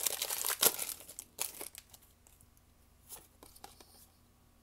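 Foil booster-pack wrapper crinkling as it is torn open, for about the first second and a half; then a few faint clicks and rustles as the cards inside are handled.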